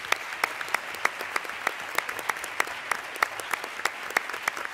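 Audience applauding: a dense patter of many hands clapping, with a few louder claps close to the microphone standing out about three times a second.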